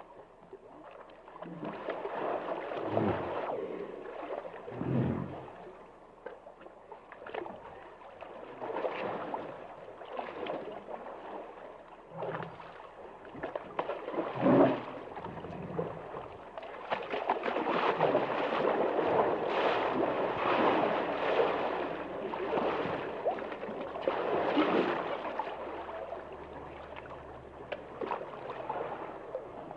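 Hippos in water: uneven sloshing and gurgling, with a few short low grunts in the first half and a longer, louder surge of water noise in the second half.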